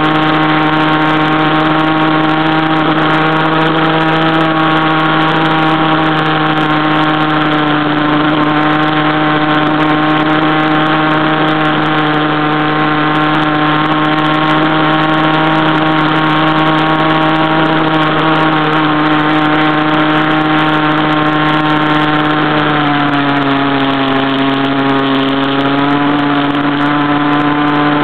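Stock CAG pocket bike's small two-stroke engine running at high, steady revs under way, heard close up from the steering head. About five seconds from the end the pitch steps down a little, and at the very end it starts to fall away as the throttle comes off.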